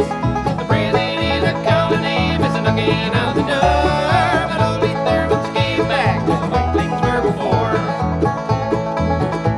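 Bluegrass band playing an instrumental passage: banjo picking over guitar and an upright bass line plodding out regular low notes, with a lead instrument sliding and wavering between notes near the middle.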